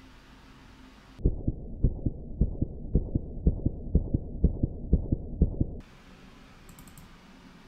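Muffled, evenly spaced low thumping, about four beats a second, starting about a second in and stopping abruptly after about four and a half seconds.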